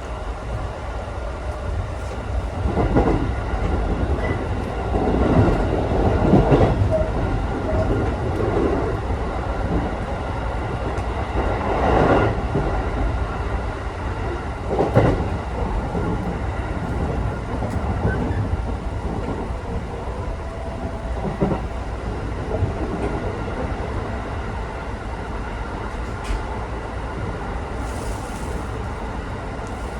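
Running noise inside a JR Tokaido Line local electric train: a steady low rumble of wheels on rail, with a few louder clunks and rattles in the first half.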